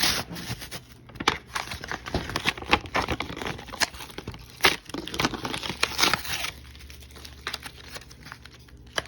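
Wrapper of a Big League Baseball card pack crinkling and tearing as it is ripped open, with a quick run of crackles for about six seconds, then quieter rustling.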